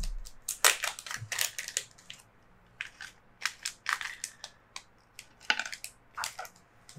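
Small plastic parts bag crinkling and rustling in the hands as it is opened and its contents shaken out, a run of irregular crackles, busiest in the first two seconds.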